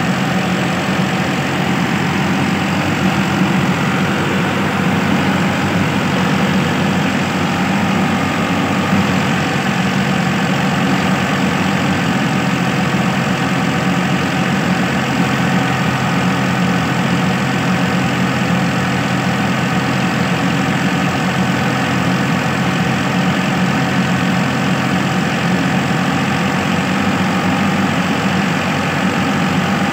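New Holland tractor's diesel engine running steadily, driving a wheat thresher as sheaves are fed into it, with the thresher's running noise over the engine.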